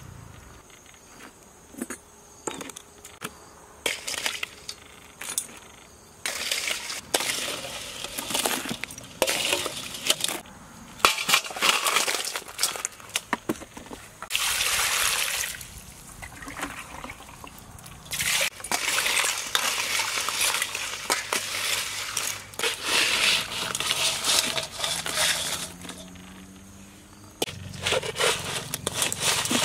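Live crabs clattering and scraping in a metal bowl as they are handled: bursts of dry clicks and scratches of shells and claws on the metal.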